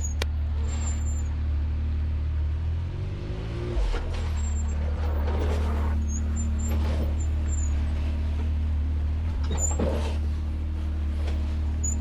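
Off-road vehicle engine running steadily, with a brief rise in engine speed about three to four seconds in.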